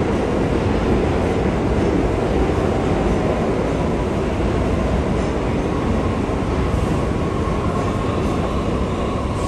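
New York City subway train rumbling through an underground station: loud and steady, with a thin steady whine coming in about six seconds in.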